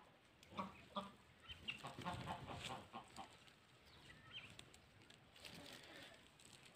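Domestic chickens clucking faintly, with a quick run of short repeated clucks in the first few seconds and a few scattered calls after.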